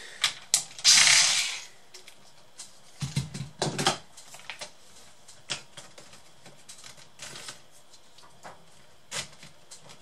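Handling and prying of a laptop's plastic case: a short burst from a cordless electric screwdriver on a screw about a second in, heavier knocks around three to four seconds as the laptop is stood on its edge, then scattered sharp clicks of the plastic case and its clips.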